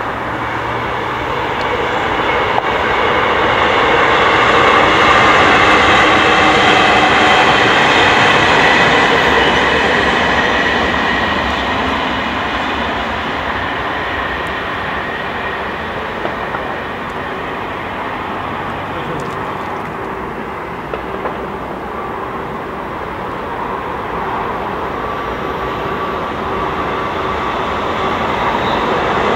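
Electric passenger trains passing at speed on a railway line, making a steady rushing of wheels on rail. The sound swells about five seconds in, eases off in the middle, and builds again near the end as an Italo high-speed train arrives.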